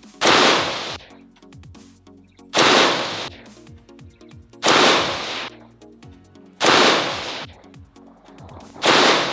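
Five shots from a BCM lightweight mid-length AR-15 in .223 with an A2 flash hider, fired singly about two seconds apart, each sharp crack fading out over a second or so. Background music plays underneath.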